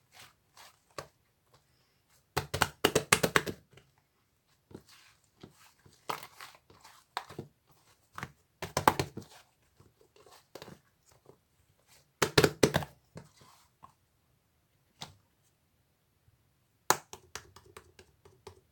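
Slime being squeezed and stretched by hand, giving clusters of sharp crackling clicks and pops every few seconds, with scattered single clicks in between.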